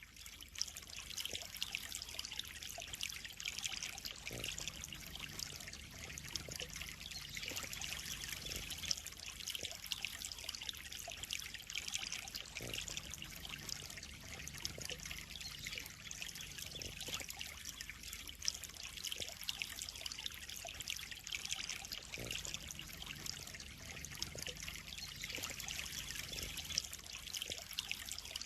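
Water trickling and splashing steadily into a koi pond, a continuous even hiss.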